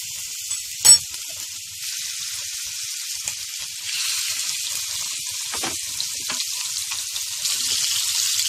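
Chicken seekh kebabs sizzling as they fry in hot oil in a frying pan, a steady hiss that grows louder about four seconds in. A sharp click about a second in, and a couple of soft knocks later.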